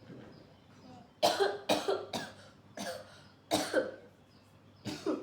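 A woman coughing repeatedly, about six coughs in loose pairs, starting about a second in.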